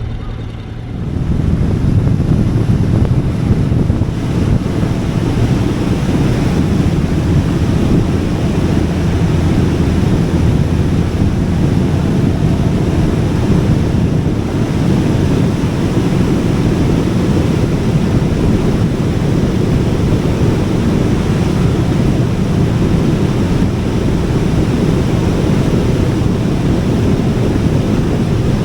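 Wind buffeting the microphone on a riding motorcycle, a loud steady low rush that swells up about a second in and holds, covering the engine.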